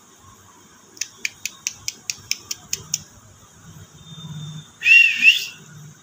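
Rose-ringed (Indian ringneck) parakeet giving a quick run of about ten short sharp chirps, then, about five seconds in, a loud whistled call that bends up and down in pitch.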